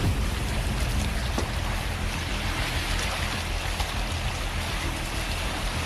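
Steady rushing wind and water noise, with the low, even hum of a boat motor running underneath.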